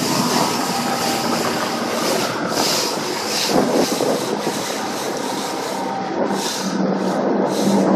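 Fish-and-ski boat under way on choppy lake water: a steady motor hum under wind rushing over the microphone, with uneven surges of hissing spray as the hull slaps through the waves.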